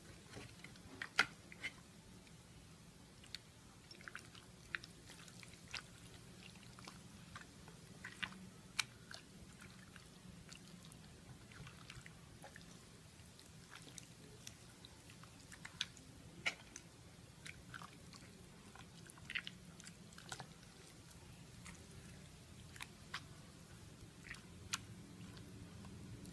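A bare hand squishing raw chicken pieces through a wet marinade in a glass bowl: faint, irregular wet squelches and small clicks.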